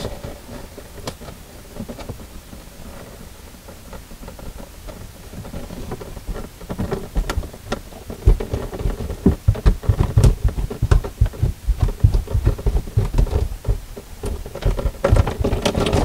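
Handling noise of hands loosening a plastic slip nut on a sink drain pipe: soft rubbing, then from about the middle a busy run of low thumps, knocks and crackles with scattered clicks.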